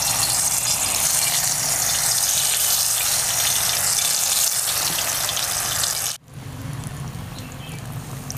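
Spiced batter-coated banana pieces sizzling loudly in hot mustard oil in an iron kadhai as they are dropped in. The sizzle cuts off abruptly about six seconds in, and a much quieter sizzle follows.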